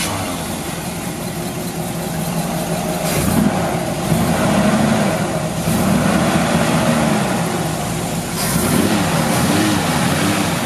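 Small-block Chevy 350 V8 crate engine with headers running at idle and revved several times from about three seconds in, its pitch rising and falling with each blip of the throttle.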